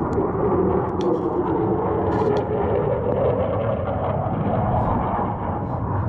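Military jet flying overhead: a loud, steady roar whose pitch slowly rises and then falls back.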